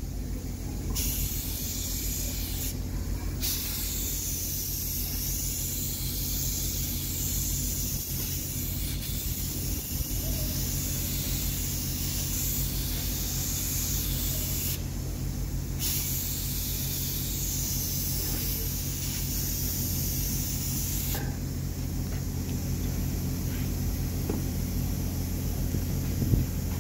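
Compressed-air spray gun with a gravity-feed cup hissing steadily as it sprays paint, the hiss stopping for about a second a few times and growing weaker over the last few seconds. A steady low hum runs underneath.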